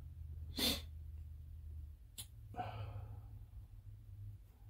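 A steady low hum with small scattered sounds over it: a short hiss-like burst about half a second in, a small click about two seconds in, and a faint brief vocal sound just after the click.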